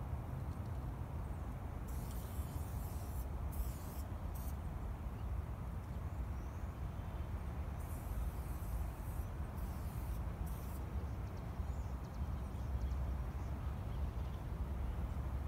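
Short hisses of an aerosol spray-paint can, a few in a row about two seconds in and again from about eight to eleven seconds, over a steady low rumble.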